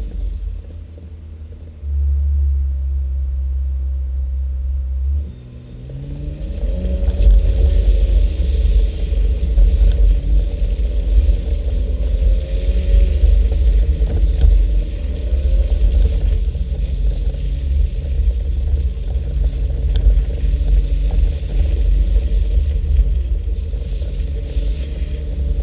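Jeep engine running as it drives, its pitch climbing about six seconds in as it accelerates, then rising and falling with the throttle. Heavy low rumble of wind buffeting the mirror-mounted camera microphone runs underneath.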